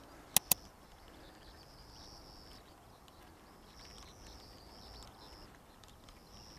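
Two short, sharp clicks in quick succession about half a second in, then faint outdoor background with a high, thin sound that comes and goes, like an animal call.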